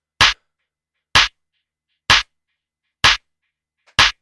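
Opening of a techno track: a lone sharp electronic drum hit repeating five times, about once a second, with only faint ticks between the hits.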